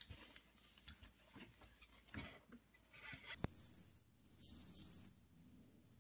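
A rabbit gnawing a twig: crisp, high-pitched crunching in repeated bursts, loudest in the second half. Before that, only faint taps and scuffs.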